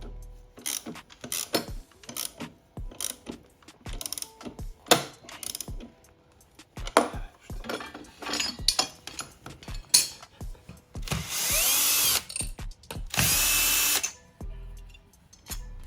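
Sharp metal clicks and knocks of tools and parts being handled, then an electric drill runs twice, about a second and a half each time, its motor pitch sweeping up and down.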